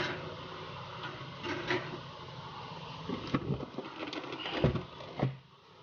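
Desoldering a relay from a circuit board: a spring-loaded desoldering pump snaps once at the start, followed by scattered clicks and knocks of tool handling as the relay's joints are cleared.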